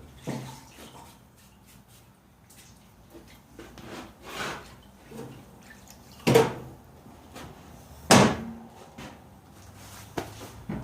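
Tools and metal parts knocking and clunking during work on a steering box installation: a scatter of light knocks, with two loud sharp clunks about six and eight seconds in.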